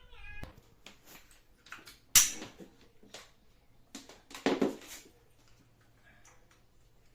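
Knocks and clicks of things being handled: a few light ticks, one sharp knock about two seconds in and a cluster of heavier knocks about four and a half seconds in, then quiet.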